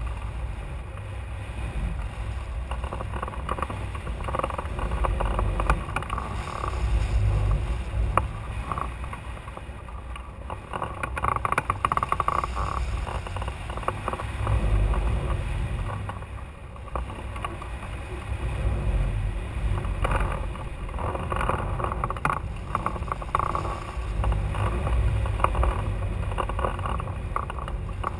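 Rushing wind on the microphone of a camera mounted on a hang glider in flight, a loud low rumble that swells and eases every few seconds.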